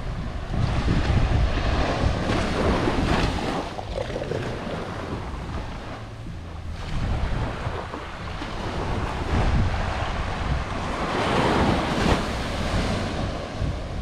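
Surf washing onto a sandy beach, swelling and easing, with wind buffeting the microphone.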